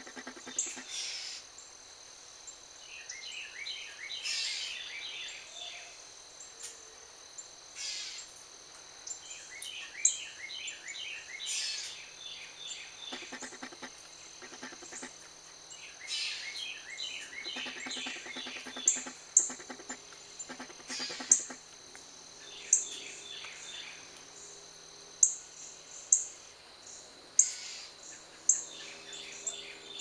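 Wild songbirds calling: repeated fast series of chirps and many sharp high chips, with a few lower calls near the end, over a steady high-pitched whine.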